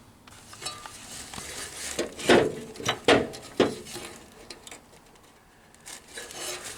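A few short metallic clinks and knocks, loudest about two to three and a half seconds in and again near the end, as bolts and hand tools are handled around the car's engine bay.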